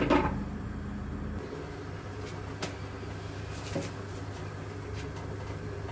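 An aluminium pot lid clinks into place on the pot right at the start. Then a steady low hum with a few faint ticks.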